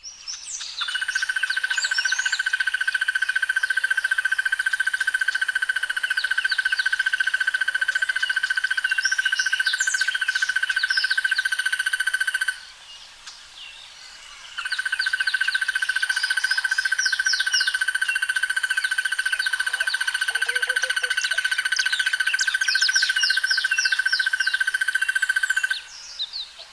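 Crested barbet (Trachyphonus vaillantii) giving its long, even, rattling trill, a sound like a fat insect or a mechanical implement. It trills twice, each time for about eleven or twelve seconds, with a pause of about two seconds between.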